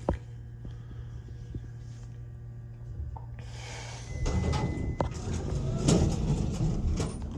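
Elevator machinery running with a steady low hum, then from about three and a half seconds in a louder rattling of knocks and clicks, as of the car and its doors moving, with a short single beep tone partway through.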